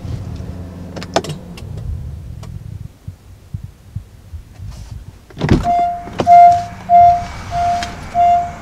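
Honda Ridgeline's cabin warning chime beeping steadily, a little under two beeps a second, starting right after a thump of the door being opened about five and a half seconds in. Before that there is a low hum with a few light clicks.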